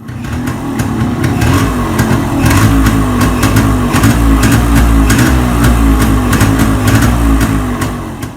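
1997 Yamaha RXG's single-cylinder two-stroke engine running loudly and steadily, fading near the end. It runs with the vacuum leak cured, the engine now drawing its air through the new air filter box.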